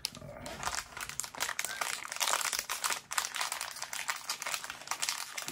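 Plastic wrapper of a Panini Playoff football card fat pack crinkling in a dense run of crackles as it is torn open and handled.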